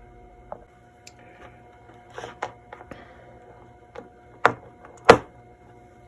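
Handling clicks and knocks of batteries and small hard parts, as three 1.5-volt cells are set up to power a transistor radio; two sharper knocks come near the end, over a faint steady hum.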